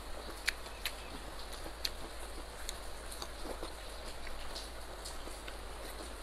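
Heavy rain falling, a steady even hiss, with scattered sharp clicks and crackles over it.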